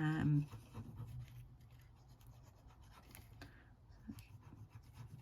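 Faint scratching and rustling of card stock being handled, with a few small sharp clicks.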